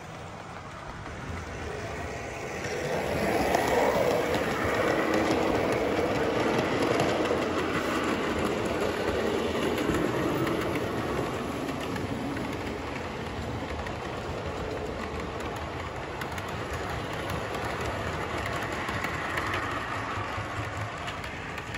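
00 gauge model train running past close by: motor hum and the wheels on the rails. It swells about three seconds in, is loudest for the next several seconds, then eases to a steadier, quieter running sound.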